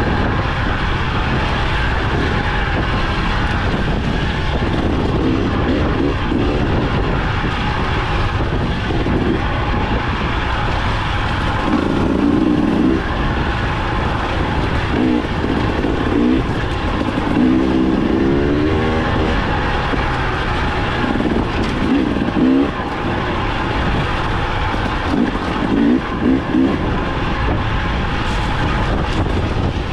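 Dirt bike engine running under load as the bike is ridden, revving up and down over and over.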